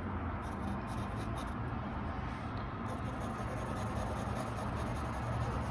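Graphite pencil shading on drawing paper: continuous strokes of the lead rubbing across the paper.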